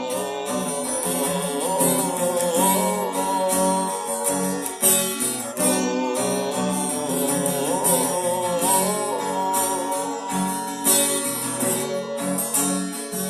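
Instrumental break of a song: acoustic guitar strumming, with a melody line over it that slides in pitch.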